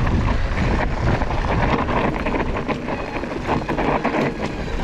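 Mountain bike riding over rough trail: tyres on the dirt and the bike rattling over bumps, with wind rumbling on the camera's microphone.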